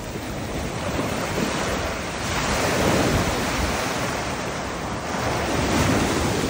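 Ocean surf washing up on a sandy beach, waves rushing in and breaking. The wash swells about two seconds in and again near the end.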